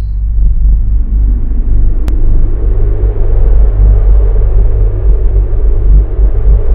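A loud, steady deep rumble, a cinematic sound effect under an animated logo intro.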